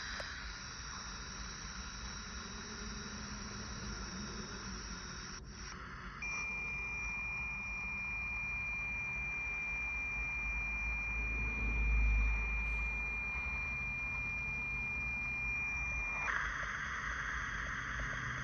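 Steady high hiss like running water, with a single pure high-pitched tone that switches on about six seconds in and cuts off abruptly about ten seconds later, over a faint low rumble.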